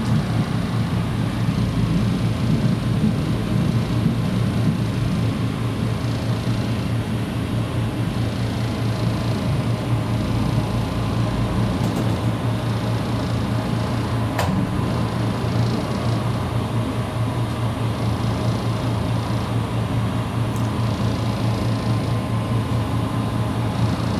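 KiHa 54 diesel railcar's engine running with a steady low hum, heard from the vestibule inside the car. A single sharp click about halfway through.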